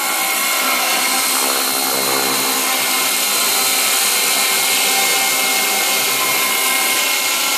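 Devil 420 electric RC helicopter hovering low: a steady whine of its electric motor, gears and spinning rotors.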